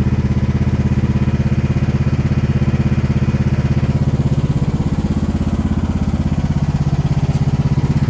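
Mini excavator's engine running steadily with an even pulsing beat, dipping slightly in level for a second or two past the middle.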